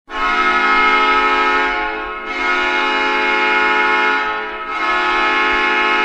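Hockey goal horn sounding in three long blasts of about two seconds each, a loud steady multi-tone horn with short dips between blasts.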